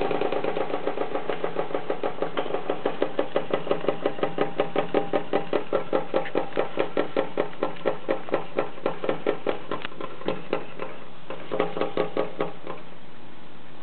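Twin-cylinder vertical model steam engine running on steam from an espresso maker, with rapid, even exhaust chuffs that gradually slow from about four to about three beats a second. It falters near the end, picks up briefly, and then stops.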